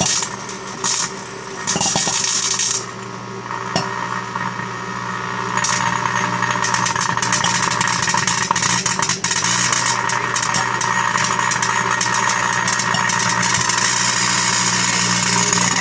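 Microwave oven running with a steady hum, over a dense crackling buzz from plasma arcing in the floodlight bulb inside, with a few knocks in the first three seconds. The crackle grows louder about five seconds in and then holds steady.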